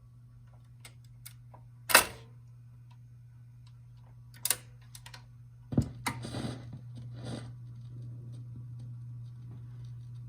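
Telefunken TW 504 record changer's mechanism clicking and knocking a few times, the loudest knock about two seconds in, over a steady low hum that grows louder about six seconds in.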